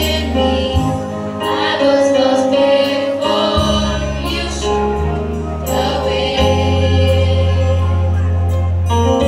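A song with voices singing over an accompaniment of held bass notes, the chords changing every second or so.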